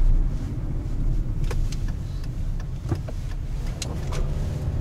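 Car driving slowly through town, heard from inside the cabin: a steady low rumble of engine and tyres, with a few light, irregular clicks.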